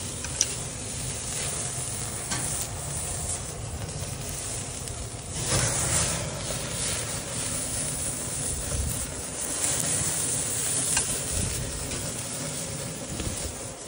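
Butter-dipped lamb chops sizzling on a hot charcoal grill grate as the dripping butter flares into flames. The sizzle swells about five and a half seconds in, during a big flare-up.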